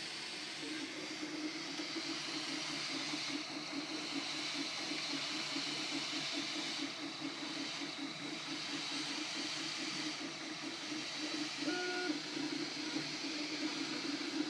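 Filament 3D printer printing: the print head's stepper motors whir in a fast pulsing pattern over the steady hiss of its cooling fans. A brief beep sounds about twelve seconds in.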